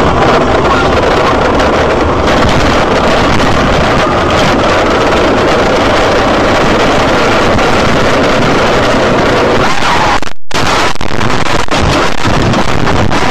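Loud, steady engine and road noise of a moving car, heard from a dashcam inside the cabin, with a brief dropout about ten seconds in.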